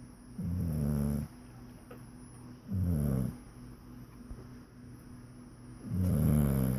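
Snoring in a slow, even rhythm: three low snores about two and a half seconds apart, each under a second long, the last near the end.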